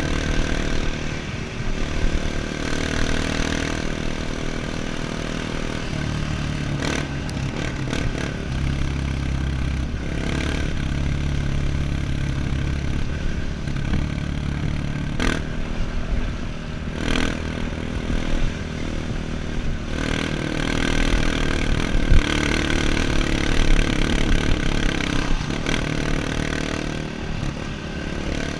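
Off-road motorcycle engine running while ridden on a dirt trail, its note shifting up and down with the throttle every few seconds. Occasional sharp knocks and clatter.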